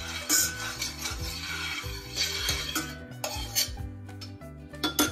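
A few sharp clinks and knocks of kitchen utensils against a heavy-bottomed frying pan, over steady background music.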